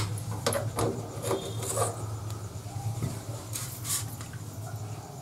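Fingers lifting raw fish pieces off a perforated steel plate and laying them into a steel tiffin box of mustard paste: soft rubbing and scraping on the metal with a few brief clicks, over a steady low hum.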